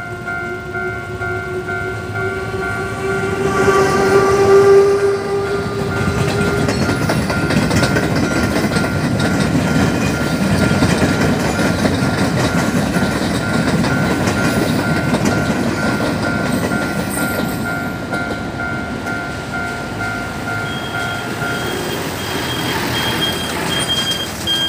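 Level-crossing warning bell dinging steadily as a train sounds its horn for several seconds, loudest about four to five seconds in. The train then passes with a long rush of wheel and carriage noise and rail clatter. Near the end the bell stops and a higher electronic beeping begins.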